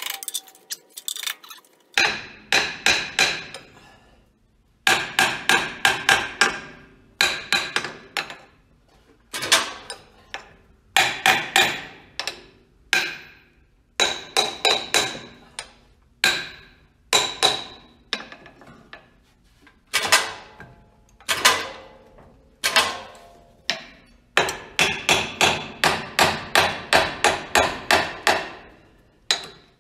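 Hammer blows on the 1939 Ford 9N tractor's cylinder head, struck in quick bursts of ringing metallic taps with short pauses between them, starting about two seconds in. The tapping is meant to break the stuck head loose from the block.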